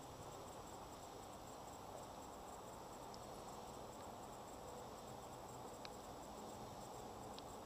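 Quiet, steady outdoor background noise with a faint, thin high whine throughout and a few soft, isolated clicks.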